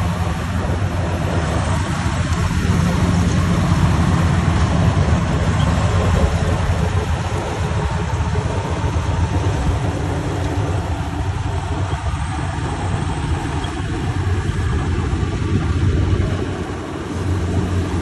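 World Sumo crawler combine harvester running steadily under load as it cuts and threshes standing ripe rice, a continuous low engine drone over a spread of mechanical noise. The level dips briefly near the end.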